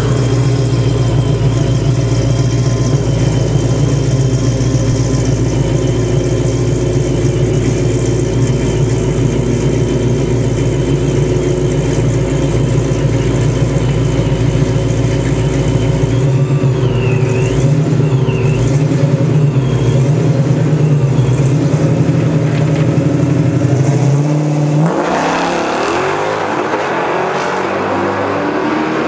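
Vortech-supercharged Hemi V8 of a Dodge Challenger idling with a steady low rumble while staged. About 25 seconds in it launches hard for a drag-strip pass, the note rising in pitch as the car accelerates away.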